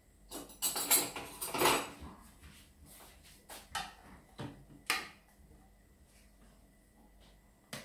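Handling clatter of a food processor's plastic lid and a metal spoon against the processor bowl: a quick run of clicks and knocks in the first two seconds, then a few single sharp knocks around the middle.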